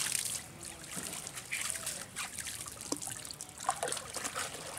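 Water splashing and trickling as a cast net is gathered in by hand in shallow river water, with scattered small splashes.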